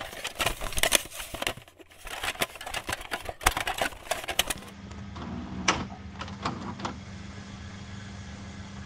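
VCR loading and starting a tape: a rapid clatter of mechanical clicks and crackle, then from about halfway a steady low hum with occasional clicks as playback begins.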